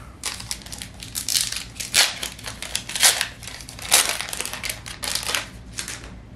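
Foil wrapper of a Pokémon TCG Sword & Shield booster pack being torn open and crinkled by hand, in a run of irregular crackly bursts that die away near the end.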